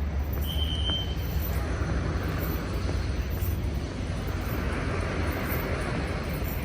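Outdoor street noise: a steady low rumble with the hiss of passing traffic, swelling in the second half, and a short, thin high tone about half a second in.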